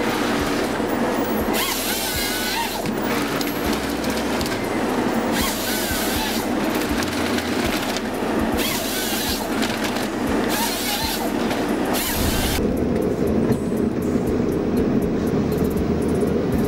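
Forestry harvester at work, its diesel engine and hydraulics running under load as the head feeds and delimbs a log, with a high wavering squeal over it. About twelve seconds in, it changes to a duller, steadier machine rumble as heard inside the harvester cab.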